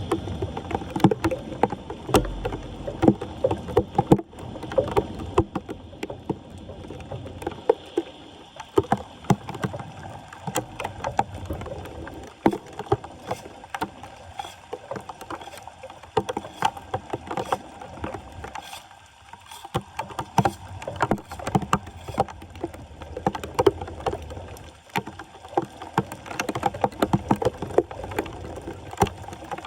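Shallow floodwater splashing and sloshing as debris is cleared from a blocked street drain, with frequent short knocks and scrapes.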